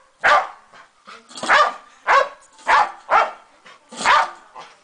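Boxer dog barking repeatedly: about six loud barks, spaced half a second to a second apart.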